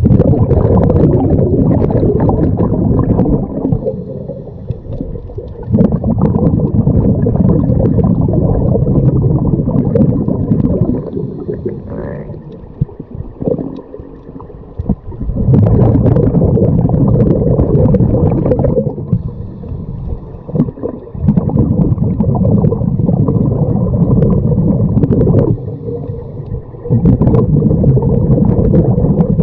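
Scuba diver breathing underwater through a regulator: exhaled bubbles rumble and gurgle in loud bursts of a few seconds each, separated by quieter inhalations, about five breaths in all.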